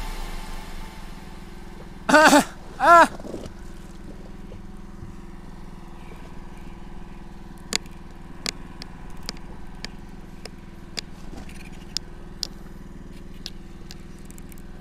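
A boat's engine running with a steady hum. Two loud, short calls that rise and fall in pitch come about two seconds in, and sharp clicks are scattered through the second half.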